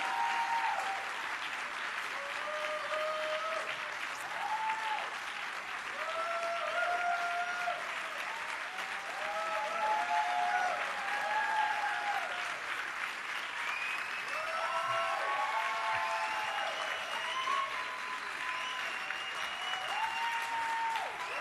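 Audience applauding and cheering, with long shouts rising and falling over the steady clapping.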